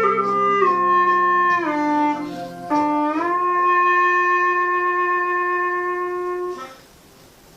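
F-key hulusi (Chinese gourd flute) playing the closing phrase of a slow melody. The notes slide into one another over a steady low drone that drops out early. The tune ends on one long held note that stops about six and a half seconds in.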